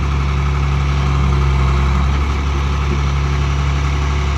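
Engine of a heavy farm machine running steadily at idle, a constant low hum with no change in pitch or loudness.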